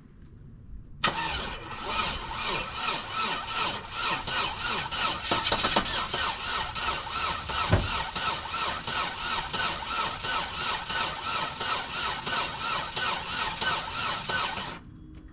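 Chevy Aveo engine cranking on its starter, turning over with an even pulsing rhythm; it starts about a second in and stops near the end without the engine catching. The engine, filled with water instead of oil, turns freely and is not seized.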